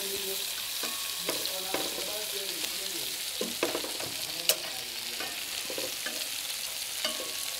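Chicken pieces and carrot frying in a pan, sizzling steadily as a slotted spatula stirs them, with a few sharp clicks of the spatula against the pan.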